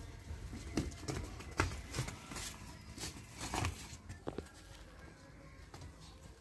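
Irregular knocks and scuffs of a young buffalo calf's hooves and a man's footsteps as the calf is led on a rope, thickest in the first four seconds and fainter after.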